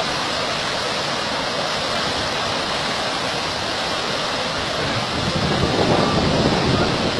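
Brown floodwater of a river in spate rushing past in a steady, loud roar of water, growing louder about five seconds in.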